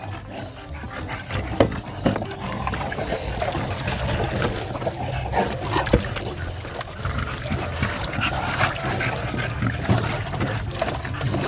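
Bully puppies breathing with a raspy, snorting wheeze while being bathed, with water splashing and sloshing in the tub. The wheeze comes from their short muzzles, worst in the pup with the shortest nose.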